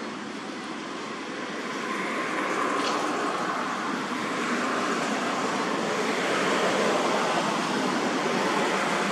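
Steady outdoor background rush, swelling slightly a couple of seconds in, with no distinct animal calls.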